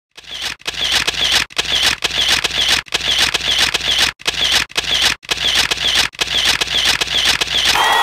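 Camera shutter clicking over and over in a rapid series, broken by brief silences about once a second.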